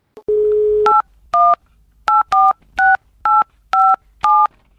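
Telephone dial tone, a steady single tone for about half a second, then eight short touch-tone keypad beeps as a phone number is dialled, spaced unevenly across the next few seconds.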